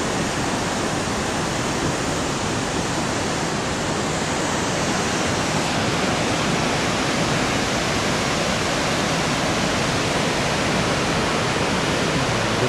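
Loud, steady rushing of the Bad Gastein waterfall, the Gasteiner Ache's white water pouring down in cascades.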